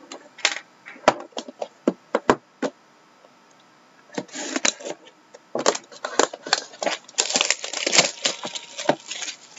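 Sharp taps and knocks as a cardboard trading-card box is handled on a wooden desk. About four seconds in, its plastic shrink-wrap is pierced with a pen, then torn and pulled off with dense crackling and crinkling.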